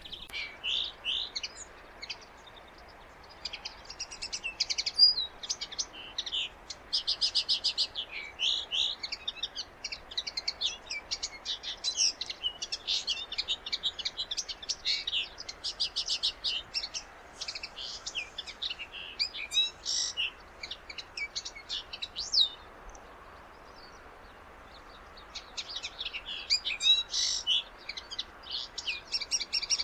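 A finch singing a long, rapid, high twittering song in run-on phrases. It breaks off for a couple of seconds about two-thirds of the way through, then starts again.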